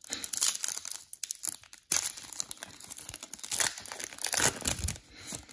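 The foil wrapper of a 2020 Panini Select football card pack being torn open and crinkled in the hands: a dense crackling, with a brief lull about two seconds in.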